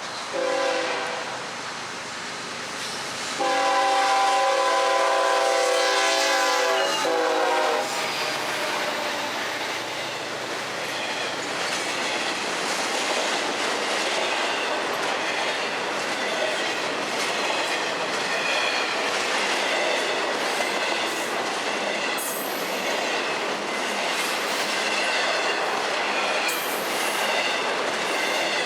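A freight train's diesel locomotive horn sounds a short toot, then a longer blast of about four seconds. The long train of freight cars then rolls by with a steady clatter of wheels on rail joints and intermittent high-pitched wheel squeals.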